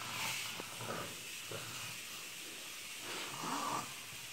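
A girl's noisy, snore-like breathing: a few breaths with a hiss in them, heard while she lies in a seizure episode.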